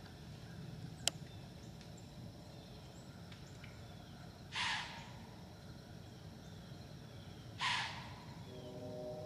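Two short, breathy snorts from white-tailed does out of sight, about three seconds apart: the forceful blow deer give in alarm.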